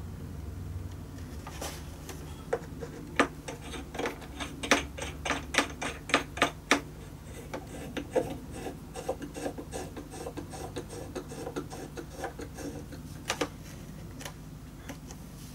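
Hands working small wooden cleats into hot glue on the inside of a cello top and setting small metal wire clamps on them: rubbing with a run of sharp clicks and taps, thickest from about two to seven seconds in, then sparser.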